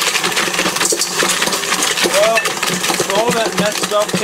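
KitchenAid stand mixer running with a steady motor hum, its beater churning paper and broken bits of school supplies so that hard pieces clatter and clink continuously against the steel bowl.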